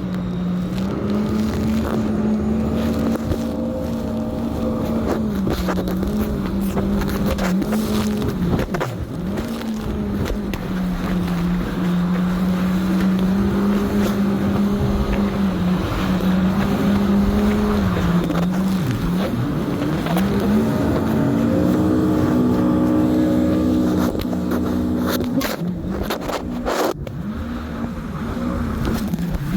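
Jet ski engine running under way, its pitch falling and rising several times as the throttle changes, with a steady rushing noise over it.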